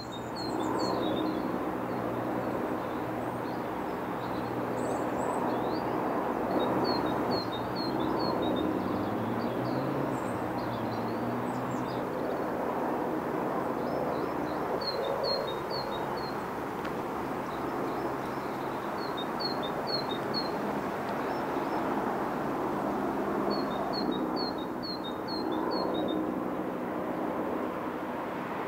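Small birds calling in short runs of four to six quick high notes, repeated every few seconds, over a steady low rumble.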